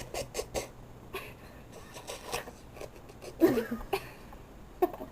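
Scattered small clicks and knocks of handling, with a short falling voice-like call about three and a half seconds in.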